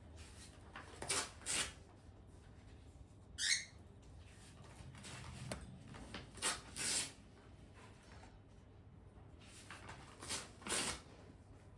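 Pet bird giving a short, wavering chirp about three and a half seconds in, among several short noisy bursts that come in pairs.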